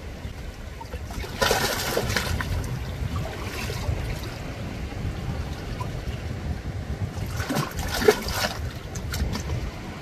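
Small seawater waves lapping and splashing against shore rocks, with two louder splashes, about a second and a half in and again near the end, over a steady low rumble.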